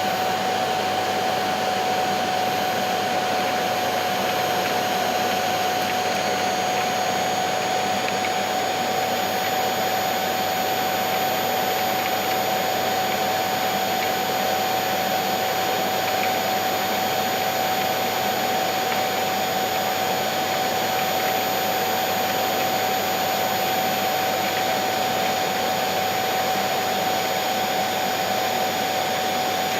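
Electric vacuum cleaner running steadily: a constant rush of air with a steady motor whine.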